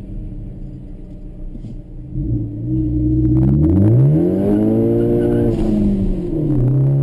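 Ford Focus ST's turbocharged four-cylinder with Borla exhaust, heard inside the cabin, running low, then revving hard under acceleration from about three seconds in. Near the end the revs drop at a gear change and climb again.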